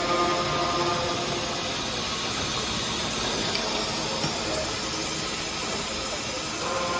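Automatic cold saw pipe-cutting machine running, a steady hissing machine noise.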